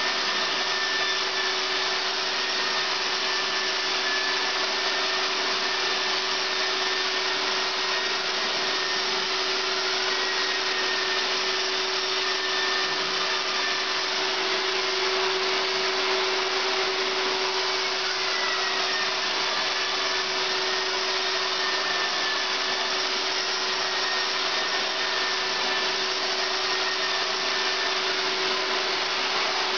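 Long-handled electric drywall sander running against a dried plaster join on a ceiling, with its dust-extraction vacuum drawing through the hose. A steady hum with a thin whistle above it that drifts slightly in pitch.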